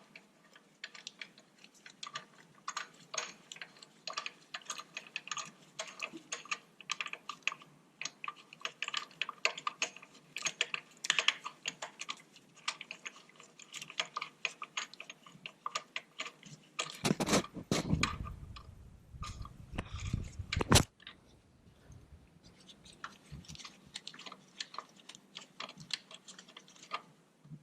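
Irregular small metal clicks and taps as a bolt is worked by hand into the threads of a Toyota Camry's torque mount bracket, with a pry bar held against the mount. About two-thirds of the way in there is a louder stretch of handling noise lasting a few seconds.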